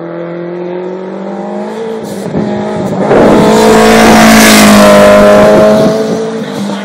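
1995 Nissan 240SX race car engine coming up the gravel road and racing past close by, growing louder and loudest from about three to six seconds in, with a rush of gravel and tyre noise as it passes, then dropping away as it pulls off up the hill.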